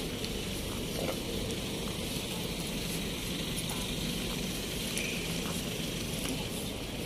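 Steady outdoor street background noise while walking: a low rumble with a hiss above it and a few faint ticks.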